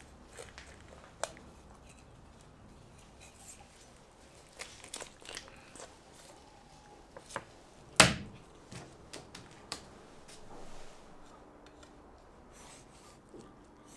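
A large kitchen knife cutting up a raw whole chicken on a wooden cutting board: scattered light knocks of the blade against the board, and one loud chop about eight seconds in as the knife goes through a joint onto the board.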